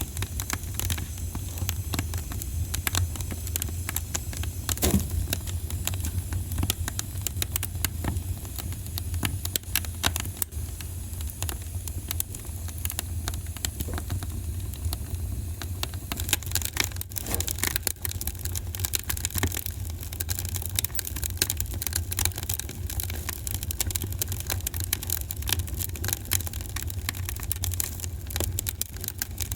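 Wood fire in a fireplace crackling and popping: many small sharp snaps over a steady low rumble, with a louder pop about five seconds in.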